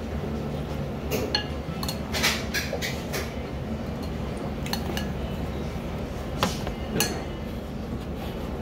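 A ramen bowl and its soup spoon clinking and knocking as the bowl is handled and set down on a tray. There is a cluster of sharp clinks about one to three seconds in, then a few single knocks, over a steady low hum.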